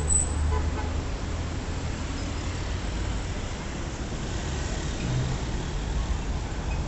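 City street traffic: a steady low rumble of passing vehicles, including motorcycles, heaviest in the first second, over a constant wash of road noise.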